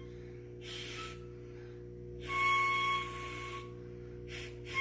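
Breathy, unskilled blowing into a small wind instrument: three airy blows, the middle one longest, each carrying only a faint wavering note over the rush of breath.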